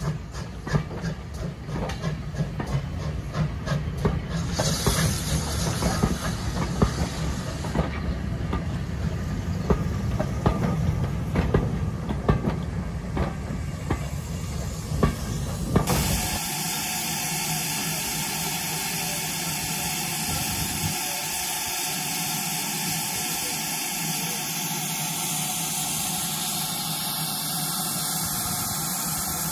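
Carriages of a steam-hauled train rolling past, wheels knocking and clattering over the rail joints with a low rumble. About sixteen seconds in it cuts to a steady hiss of steam from the standing GWR 57xx pannier tank locomotive.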